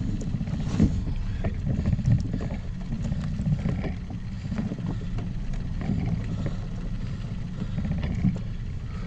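Small inflatable boat at sea: a steady low rumble with wind on the microphone, and scattered knocks and taps against the boat.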